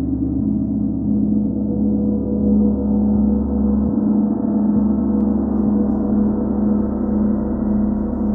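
A large chau gong sounding a sustained low hum that pulses gently in loudness, with no new strike.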